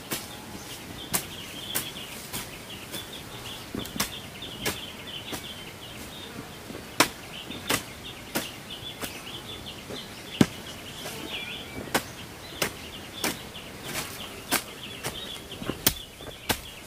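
Hand hoe chopping into dry, clumpy soil in a steady rhythm of about one stroke every two-thirds of a second, each stroke a sharp thud. Insects chirr steadily and high in the background.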